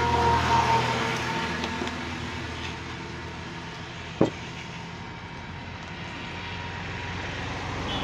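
Soda water poured from a bottle into a glass of grape sarbath, fizzing, under the steady hum of a passing motor vehicle that fades over the first couple of seconds. A single sharp knock comes about four seconds in.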